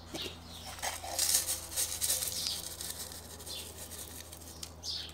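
Small white decorative pebbles poured into a plant pot, pattering and clicking as they land on the pebbles already there, in a run of short scattered rattles.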